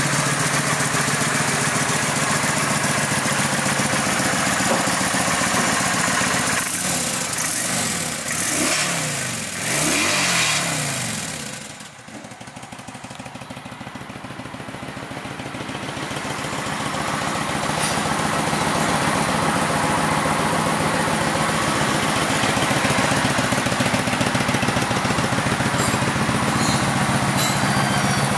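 Kawasaki VN900's V-twin engine running at idle. Its pitch rises and falls briefly about a third of the way in, then it drops away sharply and builds back up to a steady idle.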